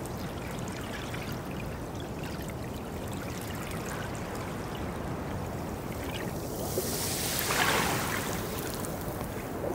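Underwater water ambience: a steady wash of rushing water noise that swells into a brighter hiss about seven to eight seconds in.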